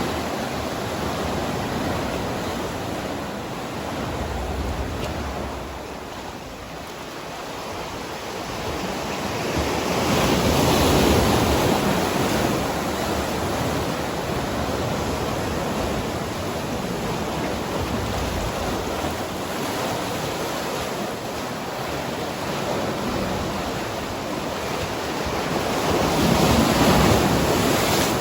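Sea waves washing, with wind noise on the microphone; the rushing swells louder about ten seconds in and again near the end.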